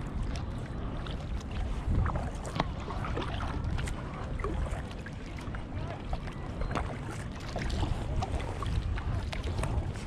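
Kayak paddle strokes: the blades splash into the water and drip, heard as scattered short splashes and drips. Under them runs an uneven low rumble of wind on the microphone.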